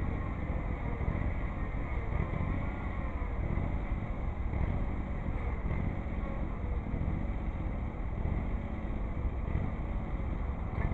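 Tractor engines running steadily: a John Deere 318 garden tractor and a Ford 3000 loader tractor, with a faint wavering whine over the low engine noise.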